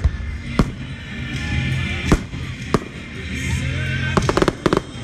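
Aerial fireworks shells bursting: single sharp bangs a second or so apart, then a quick run of cracks about four seconds in, with music playing underneath.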